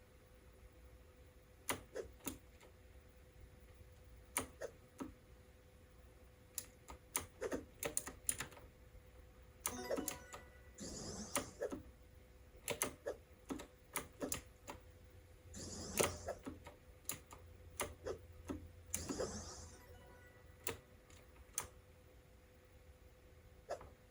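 Keys being typed on the AULA F2088 typewriter-style mechanical keyboard: scattered single clacking keystrokes, with three short flurries of faster typing about ten, sixteen and nineteen seconds in.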